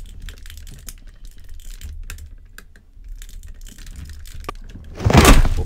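Small, rapid plastic clicks and scrapes as an interchangeable hand is pushed onto the wrist peg of a 1/6-scale Hot Toys Iron Man Mark 46 figure. A loud, brief rush of noise comes about five seconds in.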